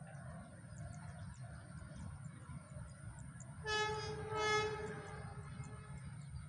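Horn of a CC201 diesel-electric locomotive sounding two blasts about half a second apart: a short one, then a slightly longer, louder one.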